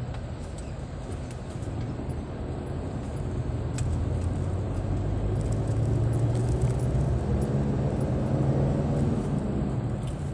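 Engine and road noise of an SUV heard from inside its cabin while driving: a steady low hum that grows louder during the first half.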